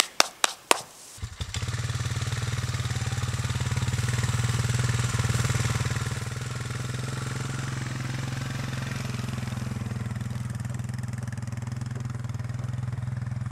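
A few sharp knocks, then an ATV (quad) engine comes in about a second in and runs steadily as the quad drives past. It is loudest a few seconds in and then settles a little lower.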